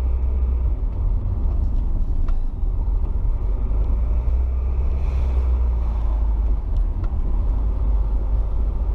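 Rover 75 CDT diesel car driving, heard from inside the cabin: a steady low engine and road rumble.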